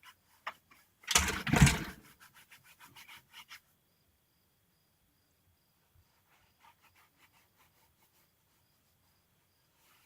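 A loud burst of rubbing and scraping on the microphone about a second in, followed by a run of light clicks and scrapes. After that it falls quiet except for a faint, evenly pulsed high insect chirping.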